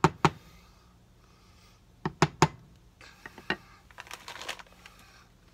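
Wooden spoon knocking against the rim of a metal soup pot: a few sharp taps at the start and three more about two seconds in. Then come a few softer clicks and a short hiss.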